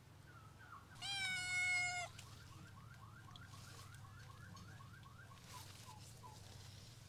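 A tabby kitten gives one long, loud meow about a second in, holding a steady pitch. Faint rapid chirps follow, repeating several times a second.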